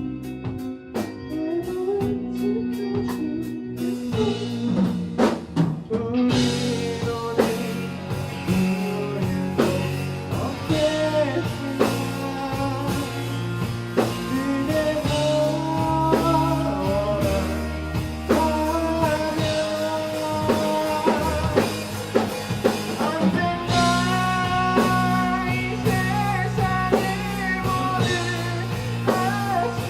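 Live rock band playing: electric guitars, bass, drum kit and a singer. A sparse guitar-and-bass passage with light cymbal taps builds with drum fills about four seconds in, and the full band comes in loud at the chorus about six seconds in.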